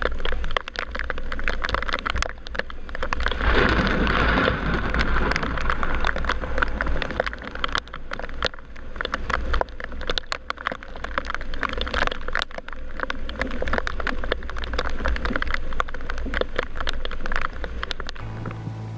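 Wind buffeting the microphone in a heavy low rumble, with spray spattering against the camera housing and water rushing past the hull of a racing yacht heeled in rough seas.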